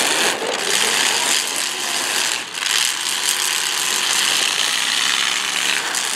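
Demolition derby cars' engines revving hard as the battered cars ram and shove one another, with metal rattling over the engine noise.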